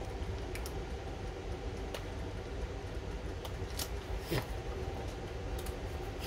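Steady fan hum of a Ninja Foodi air fryer running, with a few faint clicks.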